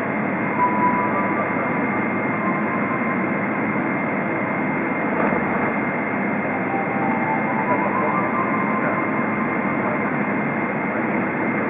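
Cabin sound of a Boeing 777-300 taxiing: the jet engines running at idle thrust under a steady rush of air noise, with a thin steady high whine.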